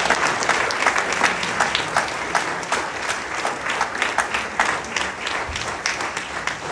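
Audience applause: many hands clapping, thinning out toward the end.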